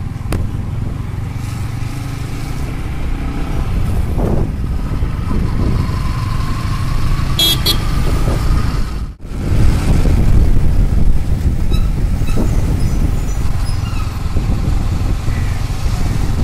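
Riding on a motorcycle through town traffic: a steady low rumble of wind on the microphone with engine and road noise. Partway through, a passing vehicle's pitch rises and a horn toots briefly. About nine seconds in, the sound cuts out for a moment.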